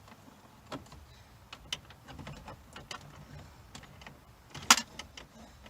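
Scattered light plastic clicks and knocks as a glove box door with a wire-pin hinge is worked into place in a car dashboard, with one sharp, louder click about three-quarters of the way through.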